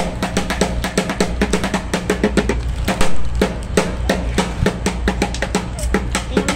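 Fast lion-dance style percussion: a dense, rapid run of drum strikes, with a brief louder burst about three seconds in.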